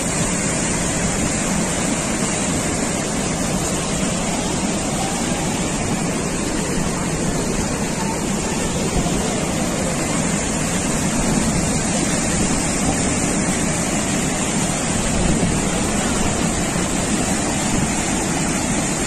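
Muddy floodwater rushing over the spillway weir of an overflowing irrigation tank, a steady, unbroken rush of turbulent water.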